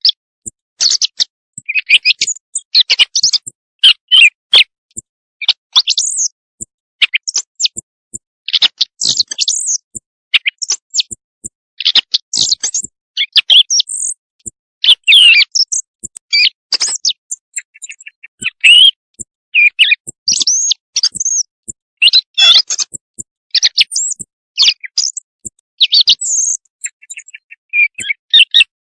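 Recorded bird song played as a hunting lure call: loud, high-pitched chirped and whistled phrases, short and varied, following one another with brief pauses.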